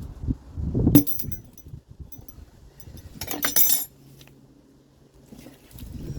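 Metal clinks and knocks from hand tools working a tyre bead onto a wheel rim: a sharp knock about a second in, then a brief clattering scrape at about three and a half seconds.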